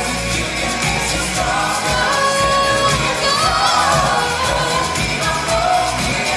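Pop music with singing from a live stage production number, playing loudly and steadily over a driving beat.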